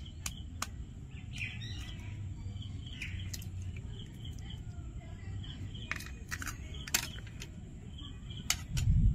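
Small birds chirping over and over, with a low steady background rumble. Several sharp clicks and knocks of kitchen handling cut through, a few right at the start and a cluster about six to seven seconds in.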